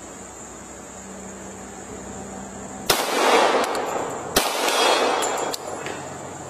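Two shots from a Glock 21 Gen 4 .45 ACP pistol, about a second and a half apart, each followed by a long echoing tail. Before them there is a steady high buzz of crickets.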